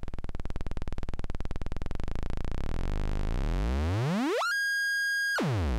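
Lunetta logic-chip synthesizer's first oscillator, a square-wave oscillator playing alone: a low, rapid clicking buzz whose pitch is swept up, steeply about four seconds in, to a high steady tone that is held for about a second and then swept quickly back down near the end.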